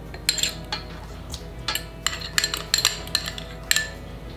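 A spoon scraping and knocking against a glass bowl while scooping coconut oil into a stainless steel mixing bowl. It makes a string of short clinks and brief scrapes.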